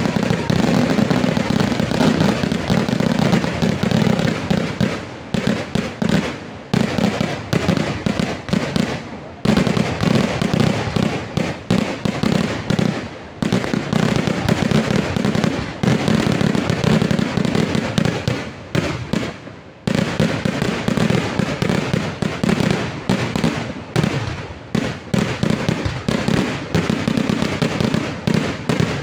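Vedikettu fireworks barrage: a rapid, almost unbroken string of loud firecracker blasts going off in quick succession. It dips briefly a few times, about ten, thirteen, sixteen and twenty seconds in.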